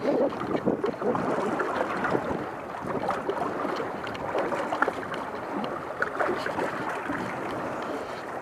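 Choppy lake water lapping and splashing right at the microphone, a continuous wash broken by many small irregular slaps.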